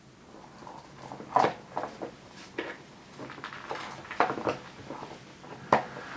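Irregular light taps, clicks and scrapes, about a dozen at uneven spacing, starting about a second in; the sharpest come near the start and near the end.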